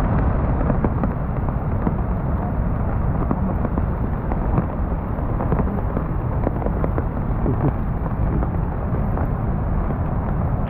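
Steady rushing of the flooded Chalakudy River over its rapids, mixed with rain falling. The river is running high because the dam upstream has been opened.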